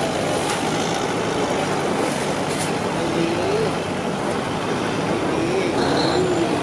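Steady road traffic noise from passing vehicles, with faint voices in the background.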